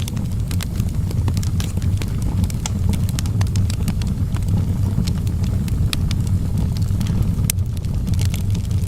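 Fire burning in a fireplace, with frequent irregular crackles and pops over a steady low rumble of flame.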